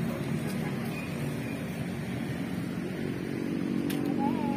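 Steady low hum of a motor vehicle engine running near the roadside, with road traffic behind it.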